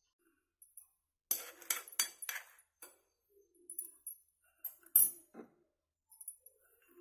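Light clinks and taps of crockery as fried cashews are picked up and set one by one on a ceramic plate of halwa. A quick cluster of clinks comes about a second in, then scattered single clinks, the loudest about five seconds in.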